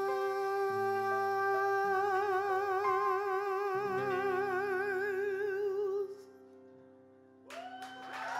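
A male singer holds the final note of a song, steady at first and then with a wide vibrato, over sustained piano chords. The music stops about six seconds in, and after a brief hush, applause and whooping cheers break out near the end.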